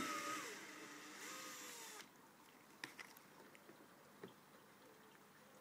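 Quiet handling noise from the plastic carry box and its contents: a scratchy scraping rustle for about two seconds after a sharp click, then a couple of faint light clicks.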